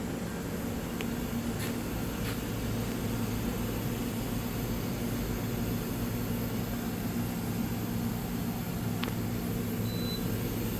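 Okuma Genos M560-V CNC vertical machining center running with a steady low hum, with a few faint clicks.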